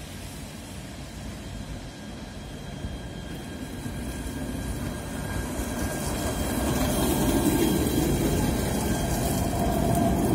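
Alstom Citadis 302 tram approaching and passing close by, its running noise growing steadily louder as it nears and loudest from about seven seconds in as it goes past.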